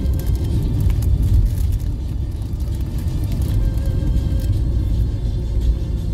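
Car driving on a rough, patched country road, heard from inside the cabin: a steady low rumble of engine and tyre noise.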